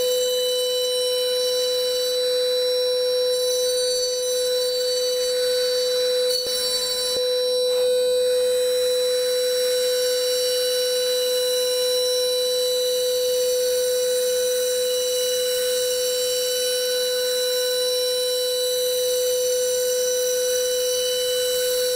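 High-speed Datron CNC milling spindle running with a steady whine as its end mill cuts a pocket in an orange foam block. A faint brief tick comes about six and a half seconds in.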